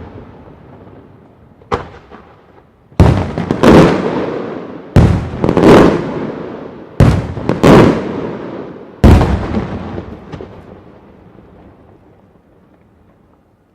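Large fireworks bombs exploding: a small pop, then about seven loud booming blasts, mostly in pairs, each followed by a long rolling echo, fading away near the end.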